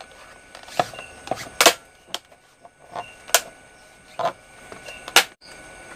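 Sharp plastic clicks and knocks, about eight in irregular succession, from the case of an 18650 DIY power bank being handled as its end cap is worked off and back on.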